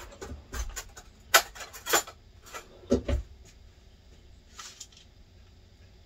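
Crinkling and rustling of a paper wrapper being handled, with sharp crinkles about a second and a half and two seconds in, and a dull thump on the counter about three seconds in.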